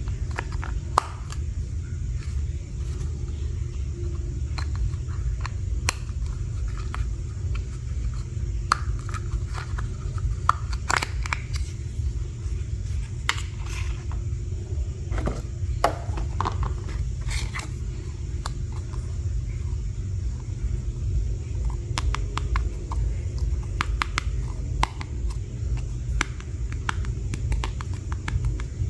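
Small plastic toy pieces and packaging being handled during unboxing: scattered sharp clicks, taps and short crinkly scrapes over a steady low rumble.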